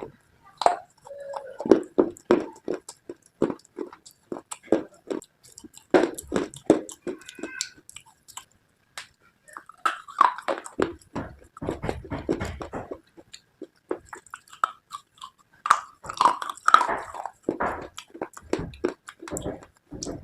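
Close-up biting and chewing of brittle slate pieces: sharp cracking crunches with gritty grinding between them, pausing briefly a little past the middle.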